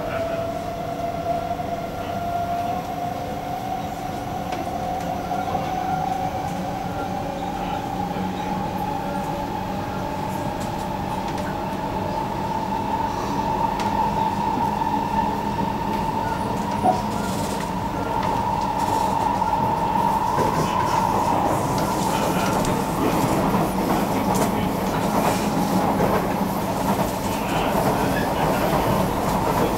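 Kawasaki-CSR Sifang C151A metro train heard from inside the car while under way, its IGBT-VVVF traction drive whining in one tone that rises slowly in pitch as the train gains speed. The whine fades about two-thirds through, leaving a louder, rougher rumble of wheels on the track.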